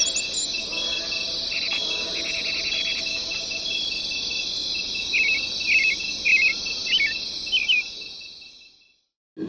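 Dense, steady chorus of insects such as crickets, with short bird chirps scattered through the second half, fading out near the end.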